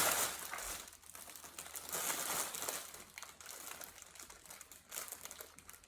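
Packaging crinkling and rustling as items are handled and unwrapped, in irregular crackling bursts that are loudest at the very start and again about two seconds in.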